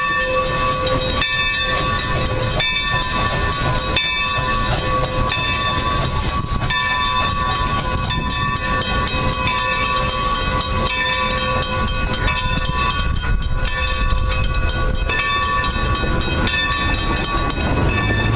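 1924 Baldwin 2-8-2 steam locomotive and its train rolling slowly over a road crossing and away, wheels clicking over the rail joints over a low rumble, while a bell rings over and over.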